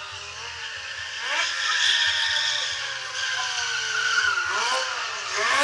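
Stunt motorcycle engine revving hard, its pitch rising and falling several times, with a sharp rev-up near the end.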